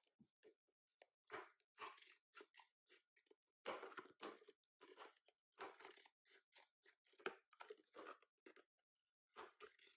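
Kitchen scissors cutting down through the thin wall of a plastic plant pot: a faint string of short, irregular crunching snips.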